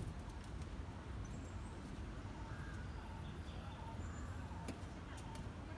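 Quiet outdoor ambience with a low rumble and scattered light clicks, and a bird giving two faint, short rising-and-falling calls in the second half.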